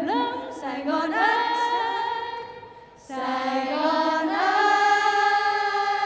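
A group of young women singing together into microphones, sliding up into a held note at the start. The singing fades about two and a half seconds in, then comes back about three seconds in as one long held note.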